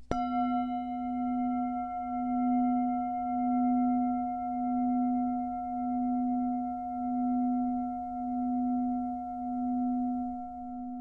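A bell struck once, then ringing on in a long, steady low tone with fainter higher overtones, its loudness swelling and fading about once a second as it slowly dies away.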